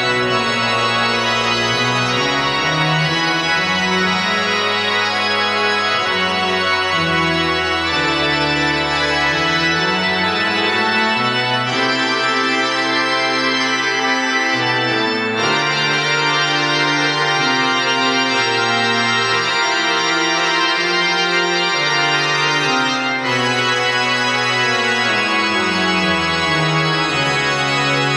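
Organ playing a loud postlude in full sustained chords over a bass line that steps up and down, with the harmony changing every few seconds.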